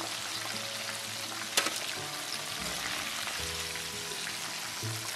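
Cornstarch-coated squid pieces deep-frying in hot oil in a wok, a steady sizzle, with a single sharp metal clink about a second and a half in as the pieces are scooped out.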